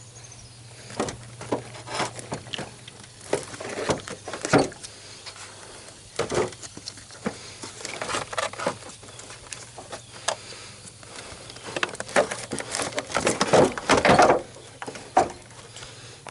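A car battery being worked down into its tray: irregular knocks, clunks and scrapes of its plastic case against the tray and nearby parts, loudest near the end.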